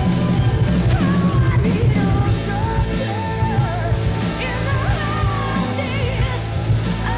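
1980s melodic rock demo recording: a woman singing lead with vibrato over a full rock band with a steady drum beat.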